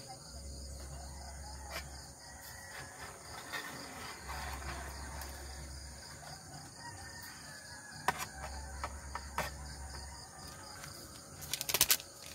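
Insects chirring steadily, with a few light knocks and then a quick cluster of sharp metallic clatters near the end as a stainless steel mug is set down on an aluminium camp table.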